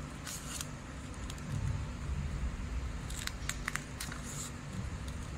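Scissors snipping through folded origami paper: a short crisp cut about half a second in, then a cluster of sharp snips around three to four seconds in, over a steady low background rumble.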